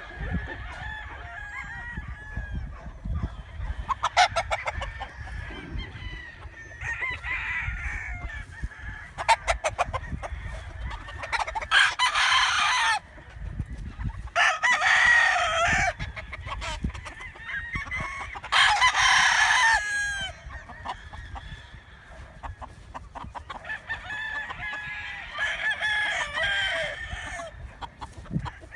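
Chickens clucking, with a rooster crowing three times, each crow a second or two long.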